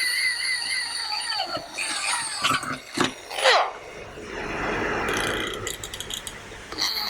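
Electric drill boring into metal, the bit giving a steady high-pitched squeal. The squeal breaks off about a second and a half in, giving way to knocks, a quickly falling whine and a stretch of rough grinding and clicking. It starts again near the end.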